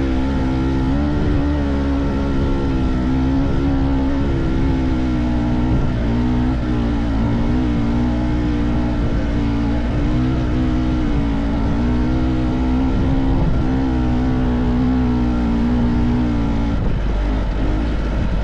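Trail motorcycle engine running under way, its pitch rising and falling a little as the throttle is worked, over a steady low rumble; the engine note falls away near the end.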